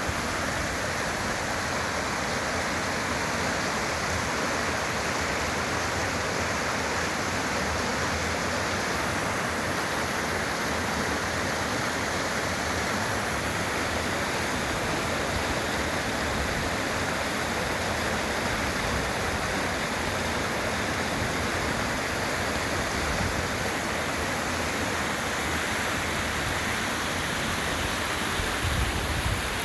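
Waterfall and rapids rushing over rock in a steady, dense roar of falling water. A brief low thump comes near the end.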